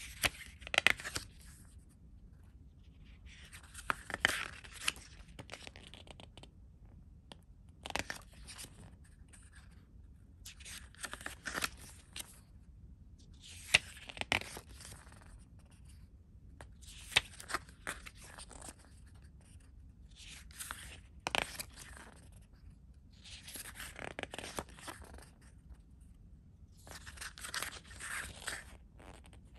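Pages of a glossy CD photo booklet being turned by hand, a papery rustle with a sharp snap about every three seconds, nine turns in all.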